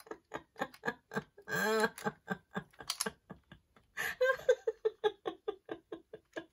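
A woman laughing in quick breathy pulses, with a couple of short voiced giggles, over small clicks of plastic as the lids of a strip of diamond-drill storage containers are handled.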